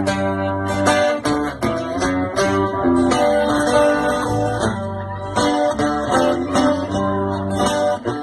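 Background music: acoustic guitar plucked and strummed in a quick, even rhythm.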